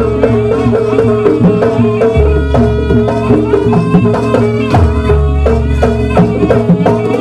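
Live jaranan ensemble music: drums beating steadily under a sustained, wavering melody, with deep low tones coming back every couple of seconds.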